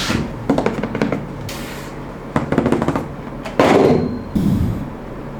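Packaging being handled while an RC car is unboxed: several short bursts of knocking and rustling, with quieter handling noise between them.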